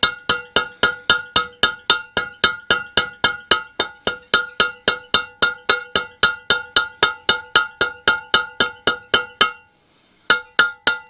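A soft-blow mallet taps a steel shaft through the cylinder of a Ransomes Ajax reel mower: a fast, even run of blows, about four a second, each ringing with a clear metallic tone. The blows pause briefly near the end, then start again.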